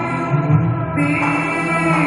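Turkish classical music ensemble of violin, cello, oud and kanun playing a slow passage of held notes; a brighter sustained note comes in about a second in.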